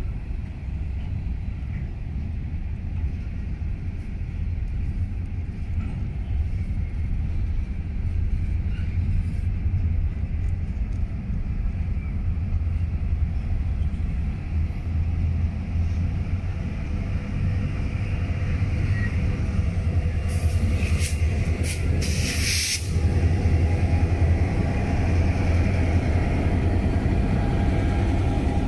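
Freight train of covered hopper cars rolling past: a steady low rumble of wheels on rail, with several sharp hissing bursts about two-thirds of the way through. Near the end the sound of EMD diesel road-switcher locomotives (a GP22ECO and a GP38-2) grows louder as they draw level.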